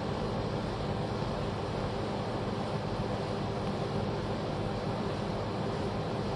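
Steady mechanical hum with an even rushing noise, as of machinery running in a workshop, unchanging throughout.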